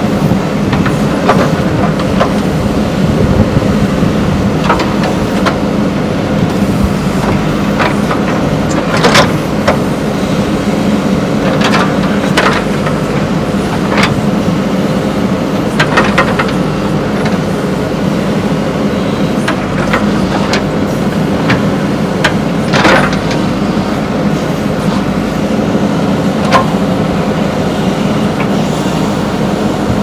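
JCB 3DX backhoe loader's diesel engine running steadily under load while the backhoe digs dry soil. Sharp metallic clanks from the bucket and arm sound every few seconds.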